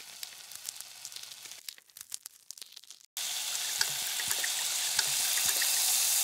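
Food frying on a hot griddle: a steady sizzling hiss full of small crackles that starts suddenly about three seconds in, with only faint scattered crackles before it.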